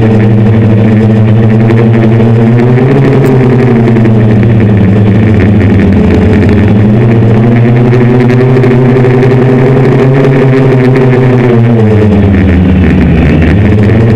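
Electric motors and propellers of a six-rotor hexacopter (750Kv Turnigy brushless motors, 10-inch props) heard from on board, a loud steady drone. Its pitch dips a couple of seconds in, climbs around the middle, drops sharply near the end and comes back up, following the motor speed as the throttle changes.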